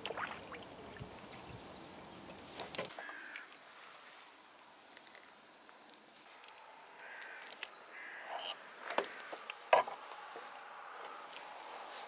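Float and hooked fish lifted out of the water with a short splash, then scattered clicks and taps of a small caught fish being handled and unhooked by hand, the two sharpest clicks about nine and ten seconds in.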